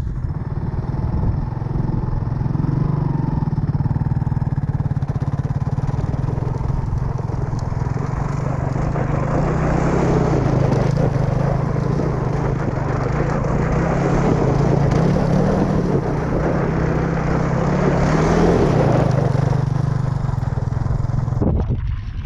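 ATV engine running steadily under riding load, with a noisy wash of wind and terrain over it. It swells a little in the middle and again near the end, then cuts off abruptly just before the end.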